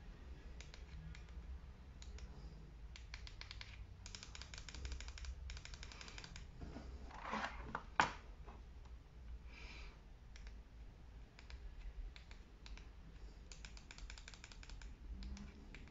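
Plastic push-button clicks from the ring light's controls, coming in several quick runs, as its colour and brightness modes are cycled. About eight seconds in there is a rustle and one sharp knock as the plastic ring is taken in hand.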